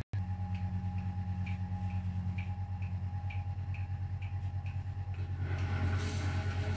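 1968 Scharpf Elektronica 2920 washing machine running a boil wash: a steady motor hum with light ticks about twice a second. It cuts out for a split second near the start, and about five and a half seconds in a louder rushing noise joins the hum.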